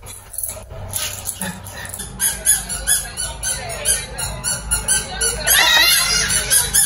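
A small child's high-pitched squeals and babble, with a run of rising squeals about five and a half seconds in.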